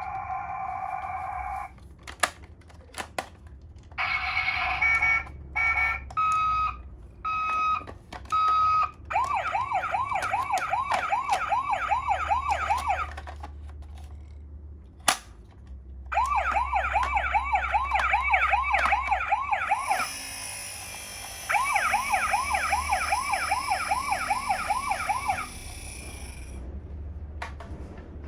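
Battery-powered toy ambulances sounding their electronic sirens one after another: a short steady beep, a few sharp clicks, a two-tone hi-lo siren, then bursts of a fast warbling siren lasting a few seconds each, about three rises a second. Near the end a second, higher-pitched toy siren sounds over one of the warbling bursts.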